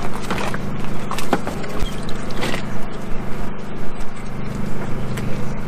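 A steady low engine hum runs throughout, with a few short knocks and scrapes as bass are handled in a tub of water.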